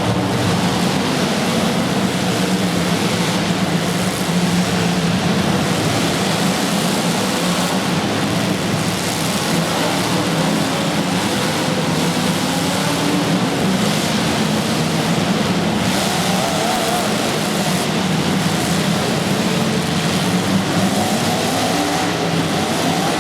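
A motor running steadily, its hum rising and falling a little in pitch, under a constant hiss.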